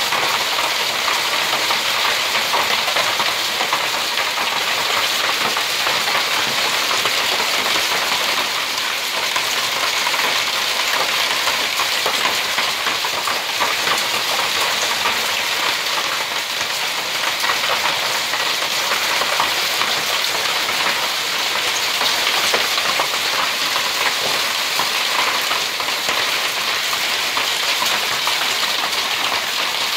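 Heavy rain mixed with small and medium hailstones pelting terracotta tile roofs: a steady, dense hiss full of fine ticks.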